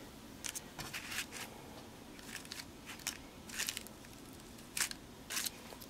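Fingers pressing and handling paper flowers, lace and paper pieces on a handmade card, giving about ten short, soft crinkles and crackles scattered through.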